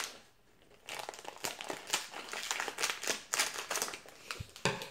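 Foil blind-bag wrapper crinkling and crackling as it is cut open with scissors: a run of short, sharp crackles that starts about a second in.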